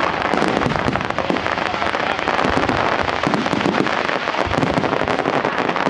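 Fireworks display: a dense, unbroken run of rapid crackling and popping from many shells and firecrackers going off at once.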